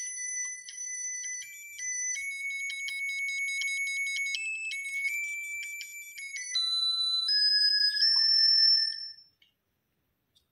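Simple electronic tune of single ringtone-like notes stepping up and down in pitch, the thin beeping melody of a music chip. It cuts off abruptly about nine seconds in.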